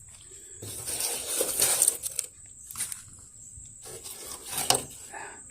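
Rustling and scraping of wet leaves and debris being scooped out of a gutter by hand, with a few short sharp knocks.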